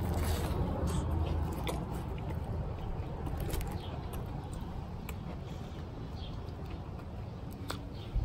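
A person biting into and chewing a grilled patty melt sandwich, with faint scattered mouth clicks and a short sharp click near the end.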